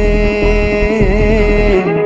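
Sri Lankan fusion dance music playing: a held, wavering melody over low drums, briefly dropping out near the end.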